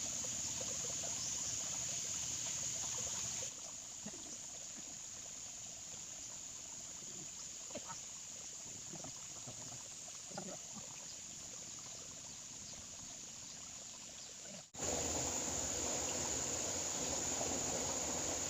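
Steady high-pitched chorus of insects. It drops away abruptly after about three and a half seconds, leaving only faint sounds, and returns just as suddenly near the end.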